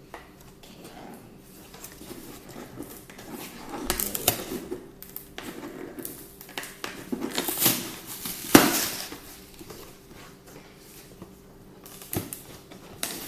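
A cardboard box being handled and opened: scattered rustling, scraping and sharp clicks, with the loudest click about eight and a half seconds in.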